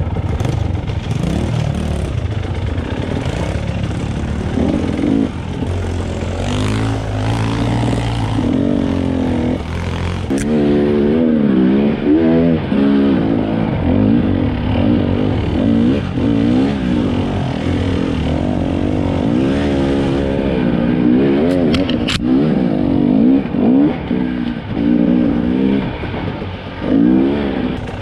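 Enduro dirt bike engine on a rough forest trail, running steadily at first, then from about ten seconds in revving up and falling back again and again with the throttle. A couple of sharp knocks come through, typical of the bike hitting bumps.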